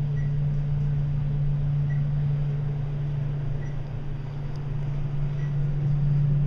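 Dover glass traction elevator car travelling, giving a steady low hum with a rushing noise. A faint short high beep repeats about every second and a half to two seconds.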